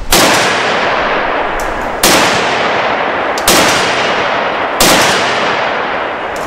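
SIG 556R rifle in 7.62x39 firing four single shots, spaced about one and a half to two seconds apart, each followed by a long echo that dies away.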